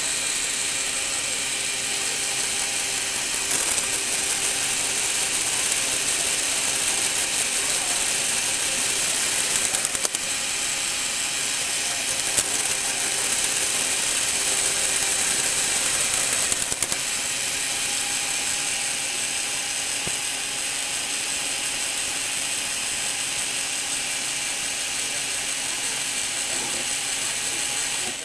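LEGO Technic gearbox driven by a Power Functions electric motor, running with a steady whir of plastic gears meshing. The sound changes slightly a few times as the gears are shifted, and stops suddenly at the end when the motor is switched off.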